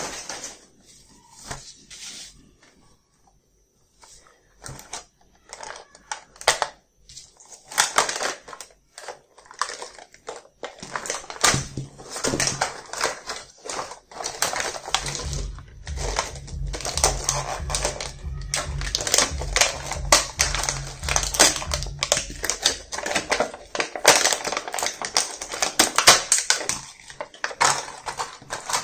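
Hands handling a hard plastic toy case, small plastic toy pieces and a thin plastic blister tray: irregular clicking, tapping and crackling of plastic, sparse at first and busier from about ten seconds in, with a low rumble of handling noise in the middle stretch.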